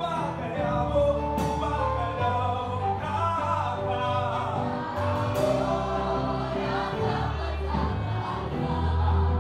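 Gospel choir singing sustained notes in harmony, with low bass notes held under the voices.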